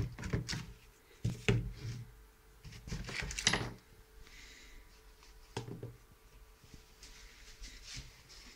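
Knocks, clicks and scraping from a homemade bullpup rifle of board and wood being picked up and handled. Several louder bumps come in the first four seconds, then only a couple of lighter knocks.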